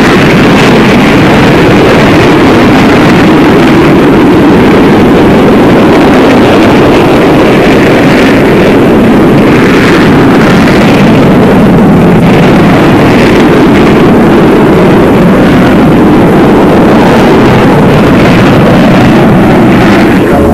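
Jet aircraft engines roaring as a loud, steady rushing noise that swells a few times near the middle.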